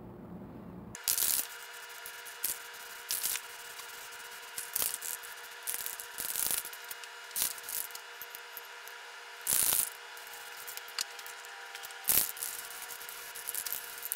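Rust-Oleum camouflage spray paint can spraying in short hissing bursts as a dark brown base coat goes on, the longest bursts about a second in and near the end.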